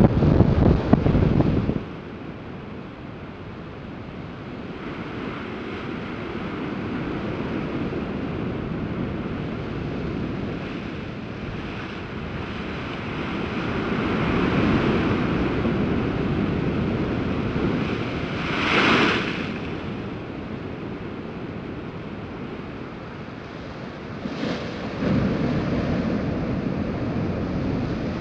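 Heavy storm surf from an approaching hurricane breaking against lava-rock cliffs: a continuous wash of waves that swells and ebbs. Wind buffets the microphone in the first second or two, and a wave bursts into hissing spray about two-thirds of the way through.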